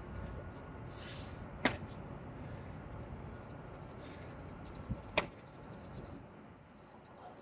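Person doing burpees and squats on concrete: two sharp slaps against the ground, about a second and a half in and about five seconds in, with hard breathing between them and a low wind rumble.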